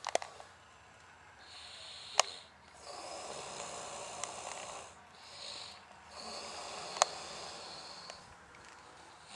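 A man snoring heavily in long, noisy breaths, repeating every couple of seconds. Three sharp clicks are heard, one right at the start, one about two seconds in and one about seven seconds in.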